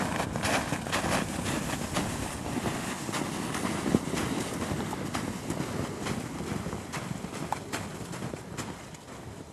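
Boots crunching step by step in snow while a deer carcass is dragged across the snow by its antlers, with a steady scraping hiss under the footsteps. It grows fainter near the end as the dragging moves away.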